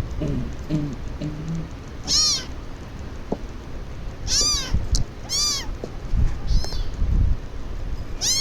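High-pitched animal calls, most likely a kitten meowing: five short calls, each rising and falling in pitch, with a few low thumps between the last ones.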